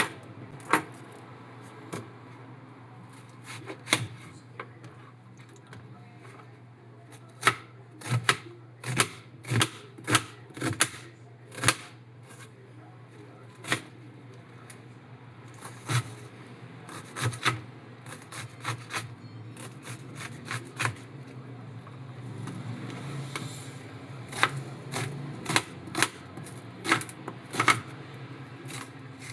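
Kitchen work sounds: irregular sharp clicks and knocks of utensils and food being handled on a counter, over a steady low hum.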